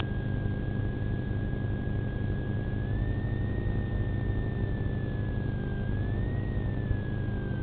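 Steady low rumble of a police car heard through its dashcam, with a thin high-pitched whine above it that drifts slightly up and down in pitch.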